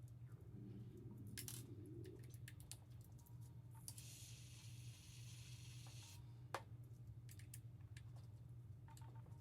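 Faint, scattered clicks and light metallic taps of small hand tools and metal parts being worked on a telescope mount, with one sharper click a bit past halfway. A hiss runs for about two seconds just before it, over a steady low hum.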